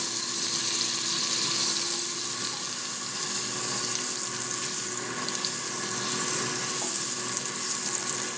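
A tablespoon of butter sizzling steadily as it melts in a hot frying pan.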